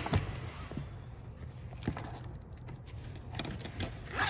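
Nylon harness webbing being threaded through a slotted plastic strap clip: soft sliding and rustling of the strap with a few light clicks of the plastic.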